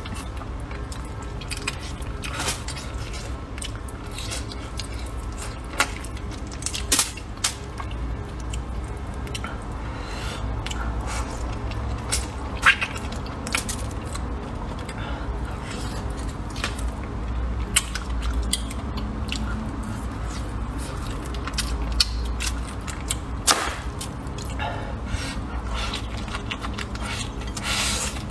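Close-miked eating: a man chewing a mouthful of rice noodles and meat, with many short, sharp smacks and clicks scattered throughout, some from chopsticks against the bowl, over a steady low hum.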